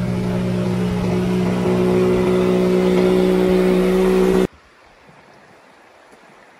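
Outboard motor running steadily with a boat under way, growing a little louder about halfway through, then cutting off abruptly, leaving only faint background sound.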